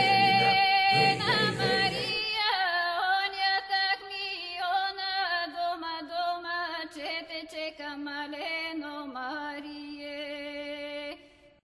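Song playing as background music. The low accompaniment drops out about two seconds in, leaving a thinner melody line that grows quieter and cuts off just before the end.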